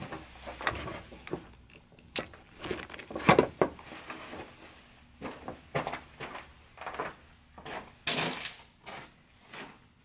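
Footsteps crunching on a gravel floor, an uneven step about every half second to second.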